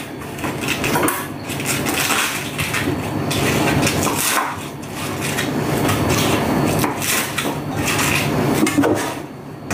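Kitchen knife chopping cabbage on a wooden chopping board: a run of irregular knocks of the blade striking the board.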